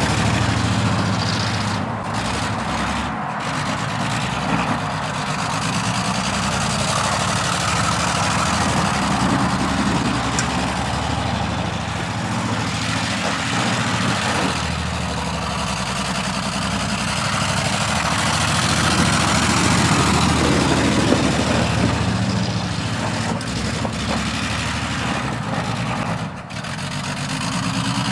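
1968 Chevy truck's engine running while the truck is driven, the revs rising and falling in slow swells, with a few brief dips.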